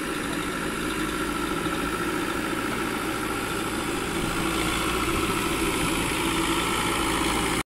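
Diesel engine of a Manitou backhoe loader running steadily as the machine drives slowly over loose soil, growing a little louder about halfway through as it comes closer.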